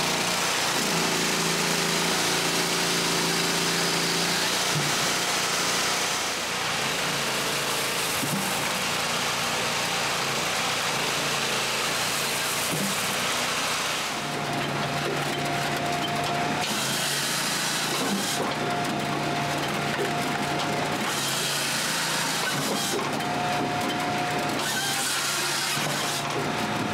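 Hakki Pilke Raven 33 firewood processor working under power, with the steady rush of a dust blower drawing sawdust from its saw chute. From about halfway, a work cycle repeats every three to four seconds.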